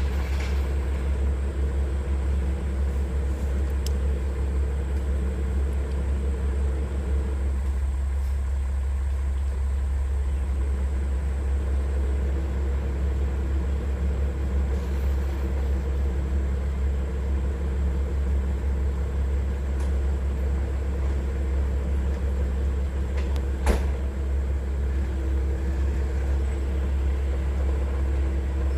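A large engine running steadily, a low rumble with a constant hum, with one sharp click about 24 seconds in.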